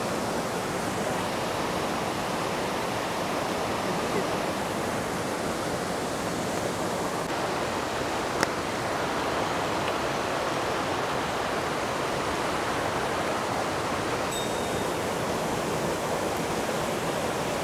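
Steady rushing of a fast mountain headwater stream and its small falls, an even wash of white water. A single sharp click sounds about halfway through.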